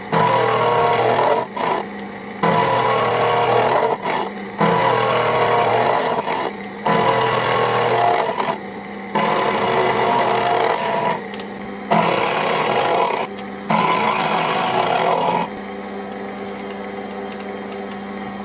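Small Proxxon milling machine cutting the flats of a hex nut: loud, rough cutting noise in passes of one to three seconds with short breaks, over the motor's steady hum. The cutter is run below its rated speed, which makes the cut noisy. From about 15 seconds in only the motor's steady hum remains.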